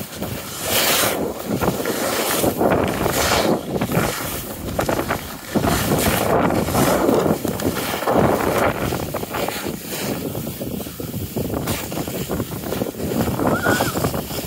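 Wind rushing over a phone's microphone while skiing downhill, with the scrape of skis carving across packed snow rising and falling in surges.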